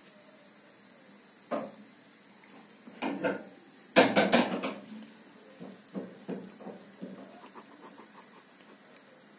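A few sharp clattering knocks, the loudest cluster about four seconds in. After them come faint quick clicks of a tabby cat licking its paw.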